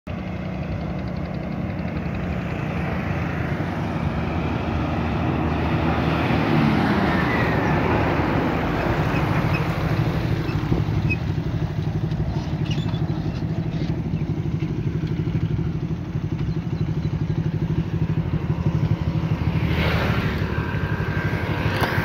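Small motorcycle engine running steadily at riding speed, with road noise; the engine note drops about seven seconds in.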